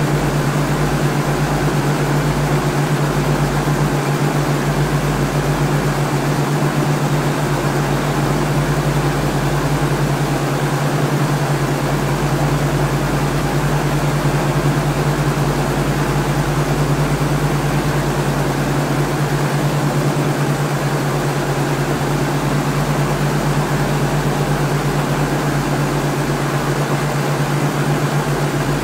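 Quadcopter drone motors and propellers giving a steady, unchanging hum.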